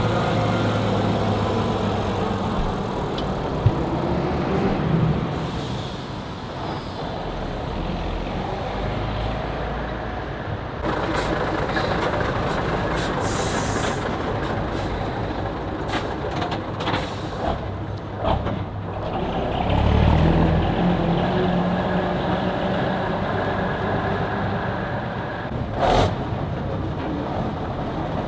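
Škoda 706 RTO vintage bus's straight-six diesel engine running as the bus drives past, with a loud hiss of air from the brakes a little before halfway and the engine revving up about two-thirds of the way in.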